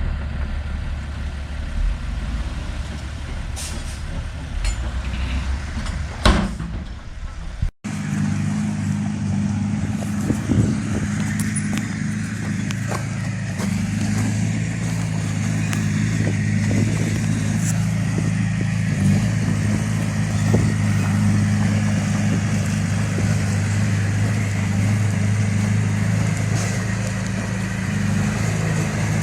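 Heavy diesel machinery engine running: a low rumble at first, then after a sudden break about eight seconds in, a steadier, stronger engine note.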